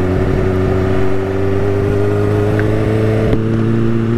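Kawasaki Ninja H2's supercharged inline-four running under light throttle while riding, its pitch creeping slowly up and easing a little just past three seconds in, with wind rush over it.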